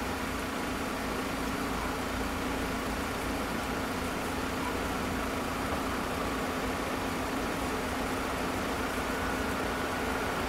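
Car engine idling steadily while waiting at a closed barrier.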